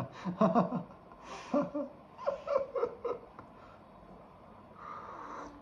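A person's voice in short broken sounds, like laughing or murmuring, for about three seconds, then a brief breathy sound near the end.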